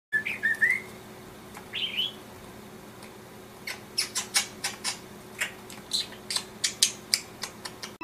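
Pet budgerigar calling: a few short rising chirps in the first two seconds, then from about four seconds in a quick run of short, scratchy chatter, roughly three or four sounds a second.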